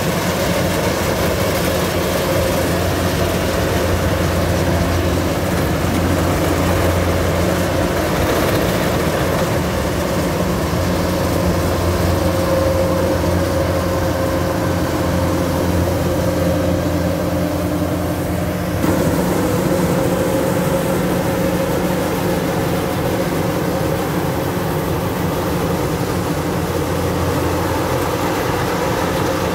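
Kubota DC-105X crawler combine harvester running steadily while cutting and threshing rice: a constant diesel engine drone with a steady humming tone on top.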